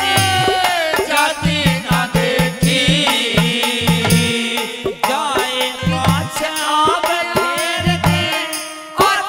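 Live Haryanvi ragni folk music with no words sung: a melody over a steady drum beat with rattling percussion, the beat dropping out briefly a few times.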